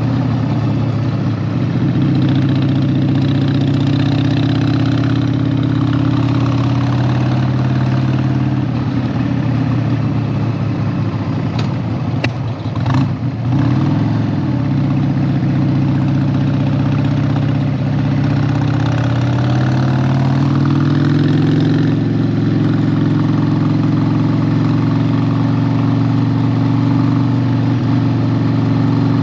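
Harley-Davidson 1200's V-twin engine running under way. Its note dips briefly with a couple of clicks about halfway through, then climbs in pitch a little later before settling back to a steady pull.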